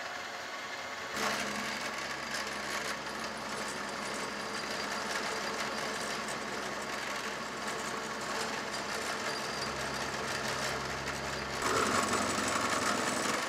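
Vertical milling machine running with a 7/8-inch end mill cutting a pass through half-inch steel plate. The cutting noise comes in about a second in over the steady spindle hum, grows louder near the end, then drops off as the cut stops.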